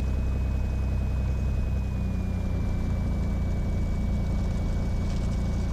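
Cessna 182 Skylane's six-cylinder piston engine running steadily at low power on the ground, a steady low drone. A faint high whine drops slightly in pitch about two seconds in.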